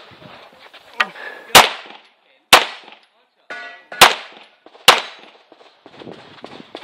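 Four 9mm pistol shots from a Tanfoglio Stock 2, unevenly spaced about a second apart, with a fainter sharp crack just before them. A short ringing tone comes between the second and third shots.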